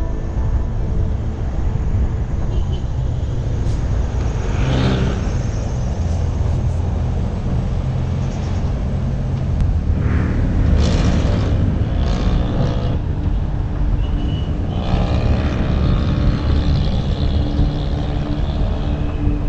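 Road traffic heard from a moving bicycle: a steady low rumble of wind and road noise, with vehicles passing close by. One engine passes louder about three quarters of the way through.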